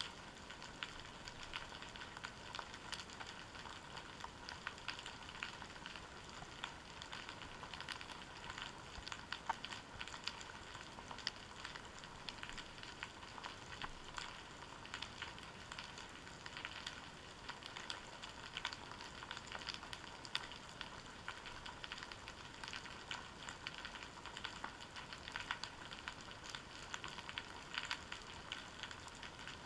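Underwater seabed ambience heard through a GoPro Hero 3 in its waterproof housing: a faint, steady fizz of countless tiny clicks and crackles, with a few sharper clicks here and there.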